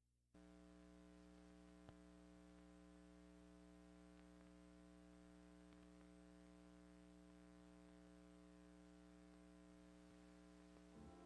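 Near silence: a faint steady electrical hum on the soundtrack, with a single soft click about two seconds in.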